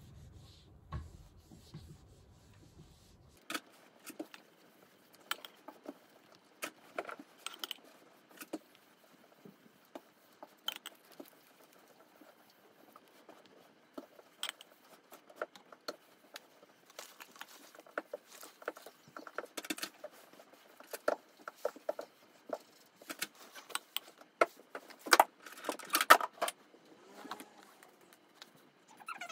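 A metal cake spatula spreading whipped cream over a sponge cake: soft scrapes and squelches broken by irregular clicks and taps. The sounds grow busier and louder near the end as the spatula scoops more cream from the glass bowl.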